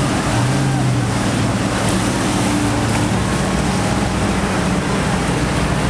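Boat engines running with a steady low hum under a continuous rush of wind and choppy water, heard from the deck of a moving boat.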